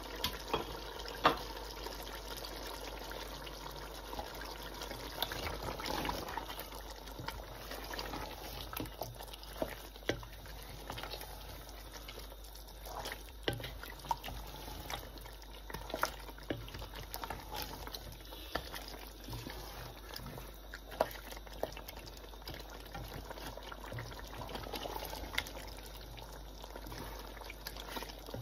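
Beef and pumpkin curry bubbling as it simmers in a large pot, with many scattered pops and clicks, one sharp click about a second in; a wooden spatula stirs through the thick curry.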